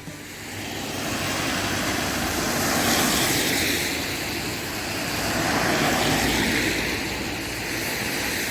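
Vehicle noise: a steady whooshing roar that swells and eases twice.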